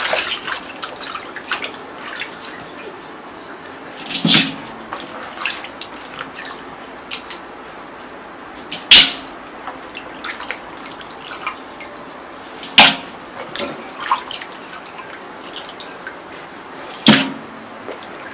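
Chicken pieces being washed by hand in water: sloshing and dripping, with four louder splashes spread through the stretch.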